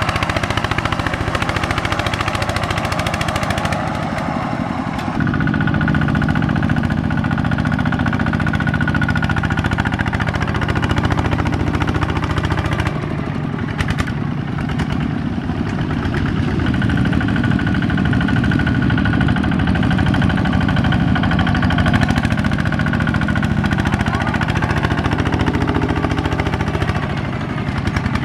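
Tractor's diesel engine running continuously under load, its note swelling about five seconds in and again around the middle.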